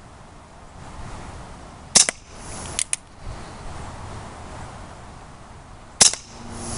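Colt Single Action Army CO2 BB revolver firing two shots about four seconds apart, each a sharp pop. Each shot is followed within a second by a couple of quick clicks.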